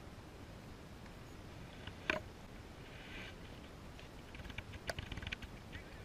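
A single sharp crack about two seconds in, then scattered light clicks and taps, with a second sharp click near five seconds.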